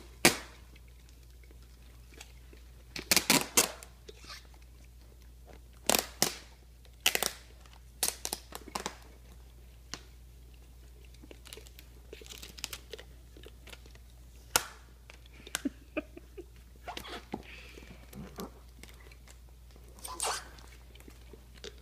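American Akita puppy licking and chewing peanut butter from a jar held to its mouth, making irregular sharp clicks and knocks in short clusters every few seconds as it bites at the jar.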